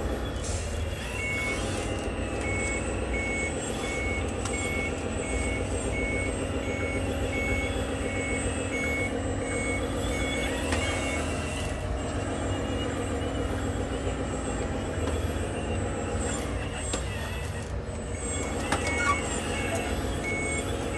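Reversing beeper on a radio-controlled construction machine, a regular high beep about once every half second to a second. It stops about halfway through and starts again near the end. Underneath is the steady whine and hum of the models' electric motors and hydraulic pumps.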